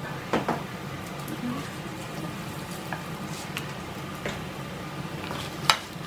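Sauce-coated pollock skin being tossed and mixed in a wooden bowl with wooden chopsticks and a wooden spatula: a steady wet, sticky stirring sound, with a few light clicks of the wooden utensils against the bowl.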